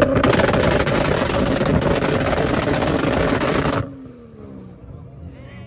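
Turbocharged 2JZ inline-six of a Toyota MK4 Supra on an anti-lag tune: a rapid, loud crackle of pops and bangs from the exhaust that cuts off suddenly almost four seconds in, leaving the engine running much quieter.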